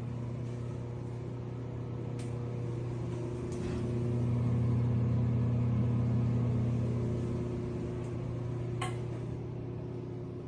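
Steady mechanical hum of a ventilation fan or air-conditioning unit, growing louder for a few seconds in the middle and then easing off. A few soft clicks sound over it.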